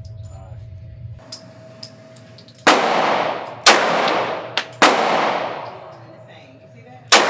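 Four handgun shots, three about a second apart and a fourth two seconds later, each trailing off in a long echo.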